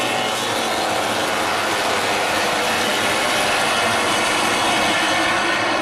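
A pack of MotoGP racing motorcycles at high revs going past one after another, their four-cylinder engines overlapping in one continuous, loud blare of many pitches.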